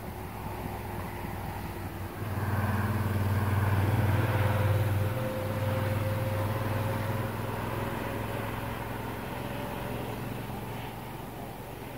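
A road vehicle passing by: its engine and tyre noise swell suddenly about two seconds in, then fade away slowly.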